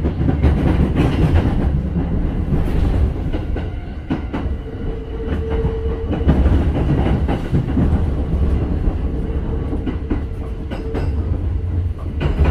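Kintetsu 2610-series and 2410-series resistance-controlled electric train running, a deep steady rumble with wheels clacking over rail joints. A steady tone joins in from about five seconds in and lasts several seconds.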